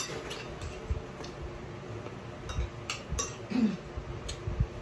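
Spoon and fork clicking and scraping against a plate during eating, a scatter of light irregular clinks.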